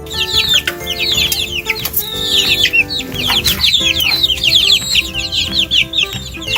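Baby chicks peeping: rapid, high, falling cheeps several times a second, over steady background music.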